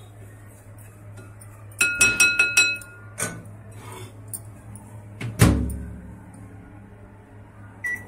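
Silicone spoon tapping about five times in quick succession on the rim of a glass Borosil bowl, each tap ringing, then a single clink. About five seconds in the microwave oven door is shut with a heavy thump, and a short keypad beep sounds near the end.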